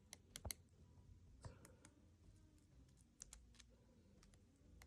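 Woodpecker pecking at a tree: faint, sharp taps at an irregular pace.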